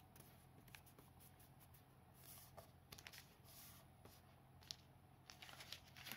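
Faint rustling and crinkling of origami paper being creased and unfolded by hand, with a few soft ticks of paper against the table, over a low steady hum.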